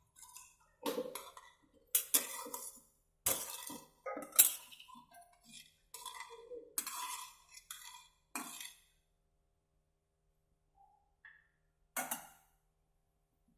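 Metal pots and utensils clinking and knocking against each other in a quick irregular run of sharp strikes with short ringing. After a pause, there is one more clink near the end.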